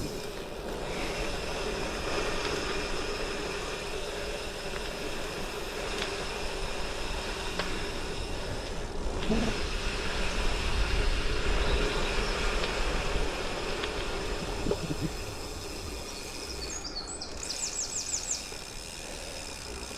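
Gravel bike on the move: Goodyear Connector gravel tyres rolling over gravel, a steady continuous noise. Near the end comes a brief run of rapid high-pitched ticks.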